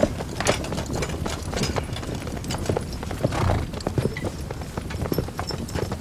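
Horse hooves clopping at a walk: a run of short, uneven knocks.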